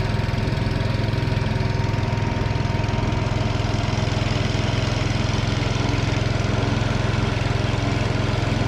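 Small boat engine running steadily at constant speed, pushing a narrow wooden boat along, with a low, even drone.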